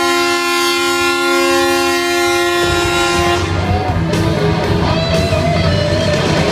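A loud, steady horn blast of several notes sounding together, part of the stunt show's sound effects. It cuts off about two and a half seconds in and gives way to loud show music with a beat over rushing noise.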